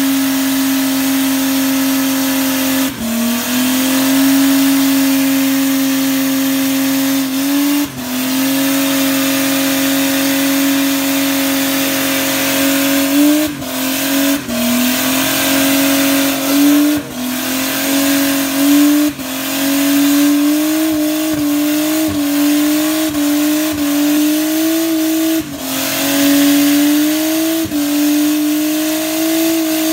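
Car engine held at high, steady revs through a burnout, with the hiss of the rear tyres spinning on the pad. The engine note dips briefly and climbs back about eight times.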